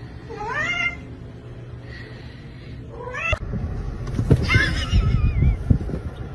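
Domestic cat meowing three times, each call rising then falling in pitch, the last one longest. From the middle on there are low knocks and rumbling noise beneath the calls.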